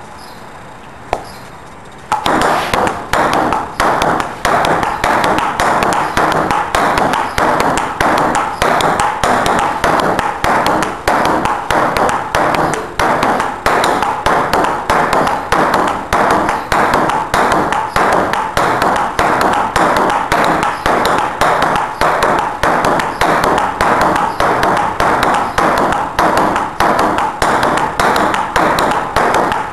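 Ping pong ball rally: the light ball clacks again and again off paddle and hard surface in a quick, steady rhythm of several hits a second. The rally starts about two seconds in and keeps up without a break.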